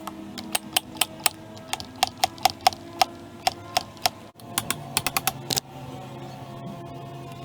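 Irregular sharp clicks and taps, two or three a second, over a faint steady hum, with a quicker flurry of clicks about five seconds in.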